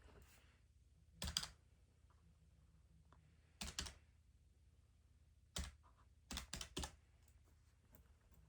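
Keys tapped in a few short clusters of quick clicks, one to three at a time, over a faint steady low background hum.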